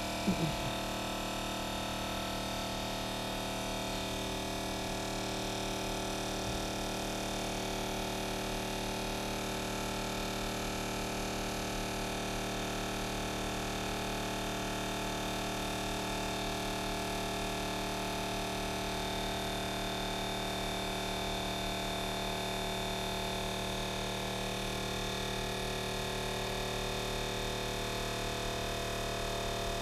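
Cordless oil transfer pump running steadily with an even hum, pushing engine oil through its hose and nozzle into the fill funnel. A couple of brief knocks sound just after the start.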